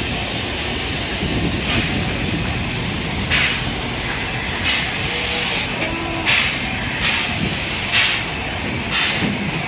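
Repeated short hisses of steam from the C11 325 steam tank locomotive, coming roughly once a second and more often toward the end, over a steady low rumble.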